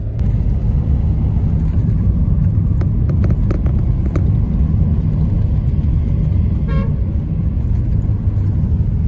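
Steady low rumble of a car driving on a city road, heard from inside the car, with a brief horn toot from traffic about two-thirds of the way in.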